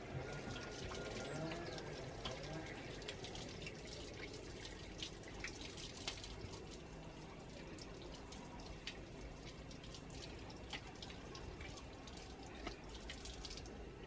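Water running from an outdoor tap and splashing in a plastic basin as things are washed by hand, with many small drips and splashes scattered throughout.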